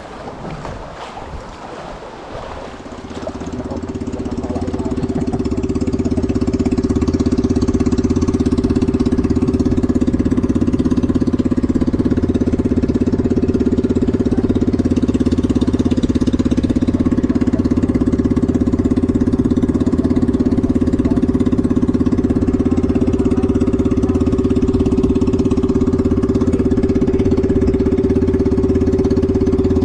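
A boat engine running, building up over the first few seconds and then holding a steady, even drone.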